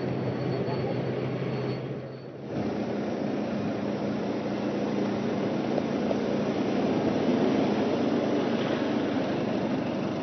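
Steady engine drone from the TV camera vehicles following a bike race: a helicopter's over the aerial view, then, after a brief dip about two seconds in, a camera motorbike's engine running at a higher steady pitch behind the riders.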